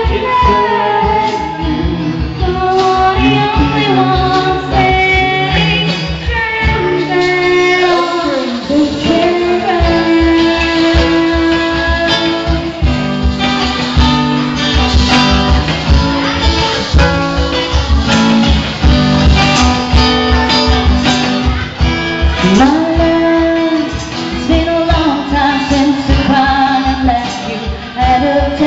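A band playing a song: a woman singing lead over guitar, with a steady beat underneath.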